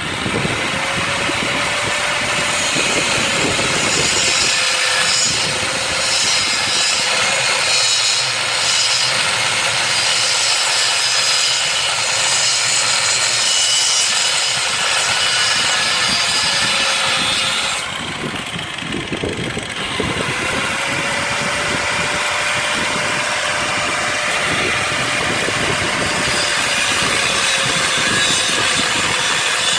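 Grinder working steel: a loud, continuous abrasive rasp over a steady motor whine, easing off briefly about two-thirds of the way through and then resuming.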